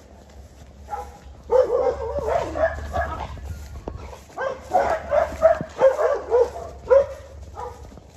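A dog barking over and over in quick runs of short barks, starting about a second in and stopping just before the end.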